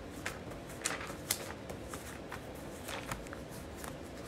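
Thin Bible pages being turned and flicked by hand: a string of short, irregular papery rustles and flicks.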